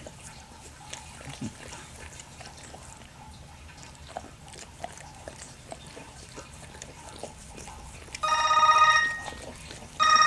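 Faint wet licking and smacking from a pit bull mother cleaning her newborn puppy. Near the end a phone ringtone sounds twice, much louder: an incoming call.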